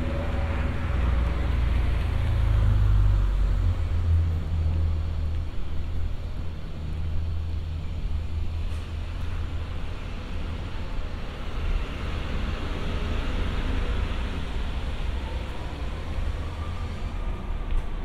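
Road traffic: cars passing on the street alongside, one swelling past at the start and another about twelve seconds in, over a steady low rumble.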